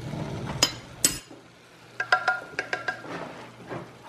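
Metal spoon and kitchen utensils clinking: two sharp clicks, then a quick run of ringing metallic clinks about two seconds in.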